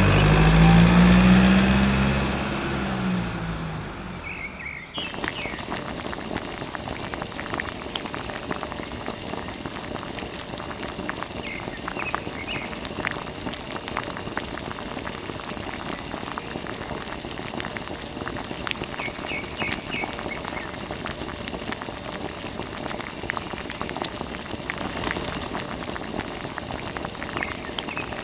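Water pouring from a mini water pump's tube, trickling and splashing onto wet sand with a steady bubbling patter. For the first four seconds a loud engine-like hum with a falling pitch sounds over it and cuts off abruptly.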